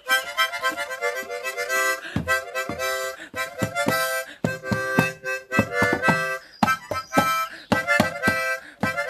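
Harmonica played in short, rhythmic chords and changing notes, a bouncy tune.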